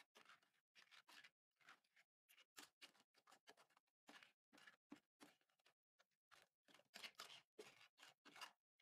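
Plastic spatula scraping and folding slime full of foam beads, glitter and sequins against a glass dish: a faint run of short crackling strokes, two to three a second.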